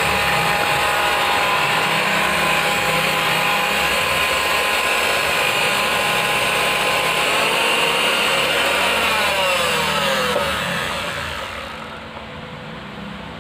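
Philips HR1552 hand mixer's brushed motor running after repair with new carbon brushes and a re-glued commutator: a steady high whine with the beaters spinning. Near the end its pitch falls and it runs on more quietly at a lower speed.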